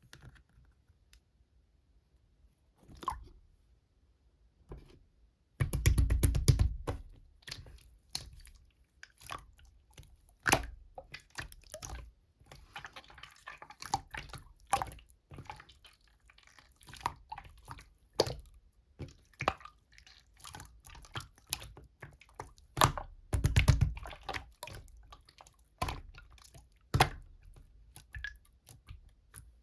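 Slime being handled: pressed, folded and squished by hand, giving sticky wet clicks and small air-bubble pops. A few scattered clicks at first, then dense crackling from about five seconds in, loudest in two heavier squashes.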